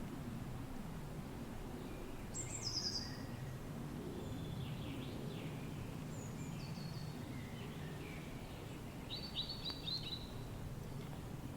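Steady low wind noise with several birds singing over it: scattered chirps and short trills. The loudest are a quick descending run of notes about two and a half seconds in and a rapid run of notes about nine seconds in.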